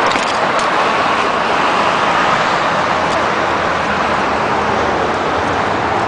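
Steady noise of heavy multi-lane highway traffic, cars passing continuously.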